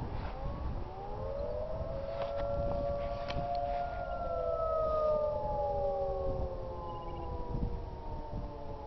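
Outdoor tornado warning sirens, two Federal Signal Model 2001 rotating sirens and a Federal Signal 2T22 dual-tone siren, sounding together during a test and heard from about a mile away. Several tones climb in pitch over the first second or two, hold, and then slowly fall from about four seconds in.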